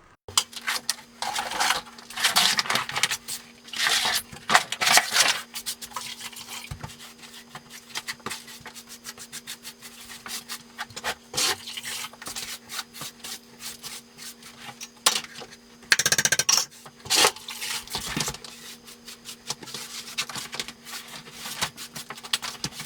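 A damp sponge wiped back and forth over a plywood subfloor in irregular scrubbing strokes, taking off the dust and dampening the wood before thinset goes down. A steady low hum runs underneath.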